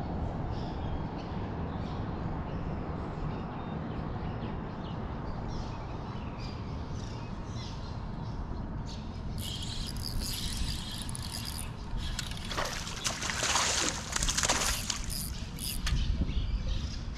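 Lake water lapping and sloshing against a kayak hull, with a stretch of loud hissing and crackling a little over halfway through.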